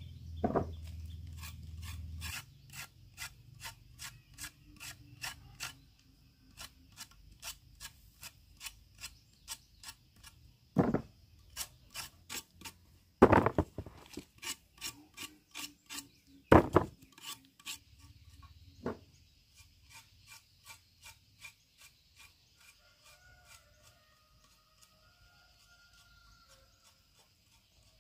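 A hand tool scraping or rasping in quick, regular strokes, about two a second, with a few louder knocks among them; the strokes fade out a few seconds before the end.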